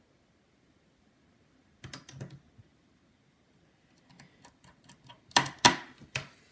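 Small sharp clicks and taps of a precision screwdriver and small metal brackets being fitted inside an iPhone 7. A short cluster comes about two seconds in, a run of light clicks follows from about four seconds, and a few louder clicks come near the end.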